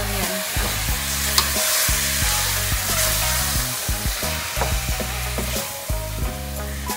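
Chicken breast pieces sizzling as they fry in a stainless steel pot with garlic, onion and green curry paste, stirred and scraped with a wooden spoon.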